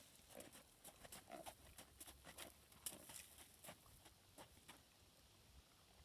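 Faint, irregular hoofbeats of a horse moving on sand arena footing, with light clicks mixed in, thinning out near the end.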